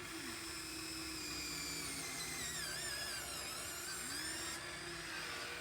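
Radio-controlled model excavator's small electric motor and hydraulic pump whining, the pitch wavering and gliding up and down as the machine works.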